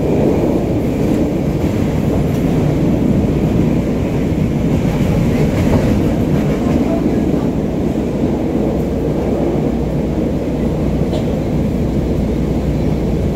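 CTA Red Line rapid-transit train running, heard from inside the car: a loud, steady rumble of wheels on the rails with some clickety-clack.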